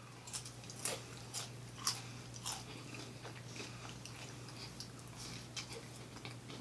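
A person chewing a mouthful of seafood close to the microphone: short, crisp chewing clicks, about two a second at first, then softer and more scattered.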